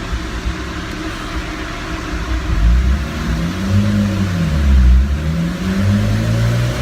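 Turbocharged Honda F20C engine of a 2001 Honda S2000 on a chassis dyno, revving up and down twice, with the pitch rising and falling, starting about two and a half seconds in. Under it is the steady rush of the dyno's cooling fans.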